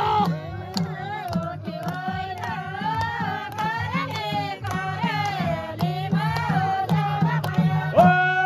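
Group of women singing a Nepali salaijo folk song, with hand claps keeping a steady beat. Near the end a long steady note comes in.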